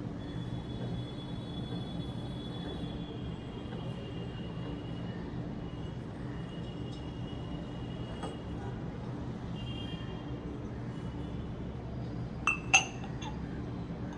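Crockery clinking twice in quick succession near the end, china or glass pieces knocking together as they are handled or set down, over a steady low hum.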